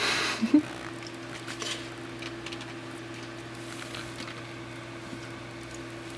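Soft rustles and scrapes of movement in a towel-lined cardboard box, with a louder burst about half a second in, over a steady low electrical hum.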